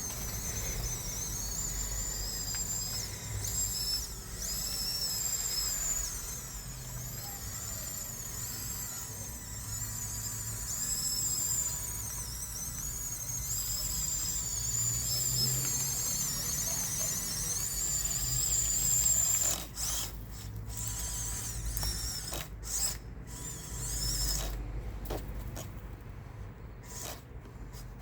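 Huina 1554 RC bulldozer's small electric drive motors and gearboxes whining as it drives, the high pitch wavering up and down with the load. About two-thirds of the way in, the whine breaks into short stop-start spurts.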